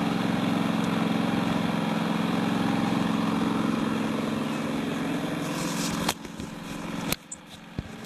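Predator 3500 inverter generator's single-cylinder four-stroke engine running at a steady, even hum. About six seconds in the sound drops away abruptly, with a couple of sharp clicks.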